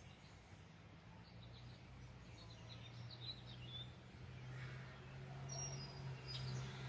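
Faint background: small birds chirping a few times, over a low steady hum that grows louder toward the end.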